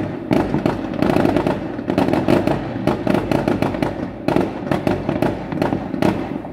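Fireworks bursting overhead in a rapid, near-continuous barrage of bangs and crackles.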